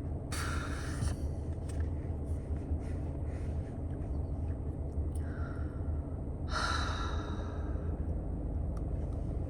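A person sighing heavily through the nose or mouth, twice, with a fainter breath between, over a steady low rumble.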